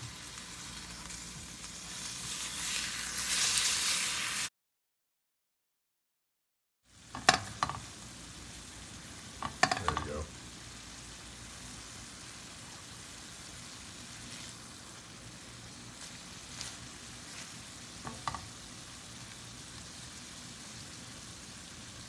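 Ground beef sizzling as it fries in a pan. The sound drops out completely for about two seconds partway through, then the sizzle returns quieter, with a few sharp clatters.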